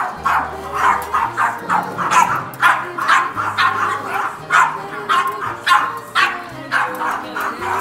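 Small white bichon frise-type dogs barking repeatedly, sharp yappy barks about two to three a second, with background music underneath.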